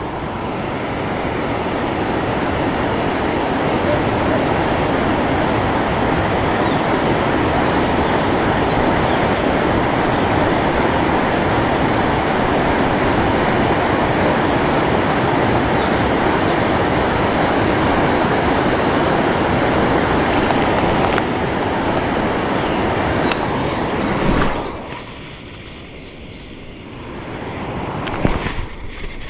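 Steady rush of water pouring through the barrage's spillway gates, loud and even, dropping off sharply near the end.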